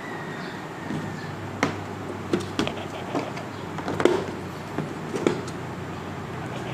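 Scattered light clicks and knocks of small metal tools (hex keys and screwdriver bits) being handled and set against the hard plastic case of a Bosch 108-piece tool kit, over a steady low hum.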